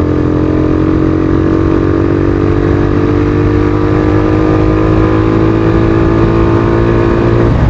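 Suzuki Thunder 125's single-cylinder four-stroke engine running through a new aftermarket muffler while being ridden. It gives a steady exhaust note whose pitch sinks slowly, then stops abruptly near the end.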